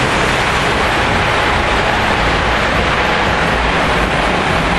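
Lionel O gauge model trains running on three-rail track, making a steady, even rushing noise of wheels and motors.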